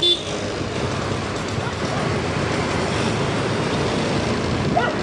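Steady wind and road noise from riding a motorbike through a city street, with engine and passing traffic blended into an even rush. A brief, loud high tone sounds right at the start.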